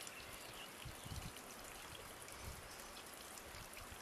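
Faint outdoor background noise: a steady hiss with a few short low rumbles about a second in and again midway.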